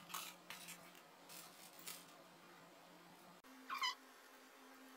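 Faint crackle and rustle of a paper food carton being tipped and shaken to get the last crumbs out into a hand. Almost four seconds in there is one brief, high, squeaky cry that falls slightly in pitch.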